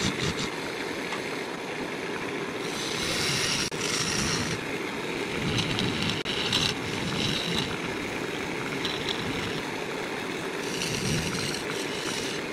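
Wood lathe running steadily while a turning tool cuts the face of a spinning ash bowl blank. A hissing, scraping cutting noise swells and fades over several passes above the lathe's steady hum.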